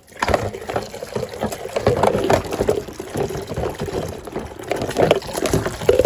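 Kitchen faucet running as dishes are rinsed in the sink, with water splashing and dishes clinking against each other and the sink now and then.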